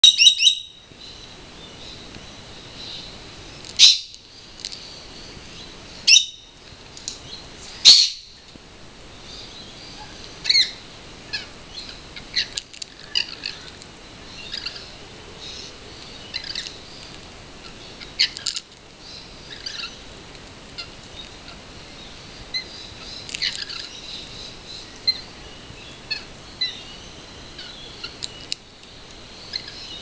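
Rainbow lorikeets calling: a run of short, loud, harsh calls in the first eight seconds, then scattered softer chirps and calls.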